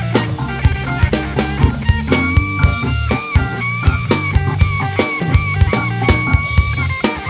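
A funk groove played on a drum kit, with snare, cymbals and bass drum in quick syncopated strokes. It runs over a backing band track with a bass line and guitar. Held high notes come in about two seconds in and last until near the end.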